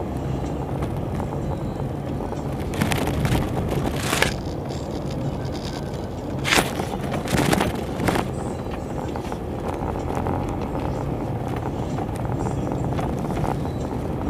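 Road noise inside a moving car's cabin: a steady low rumble of engine and tyres, with a few brief louder rushes of noise about three to four seconds in and again around six to eight seconds in.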